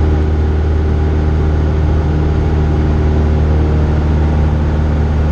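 Cessna 172's piston engine and propeller droning steadily at constant power, heard inside the cabin.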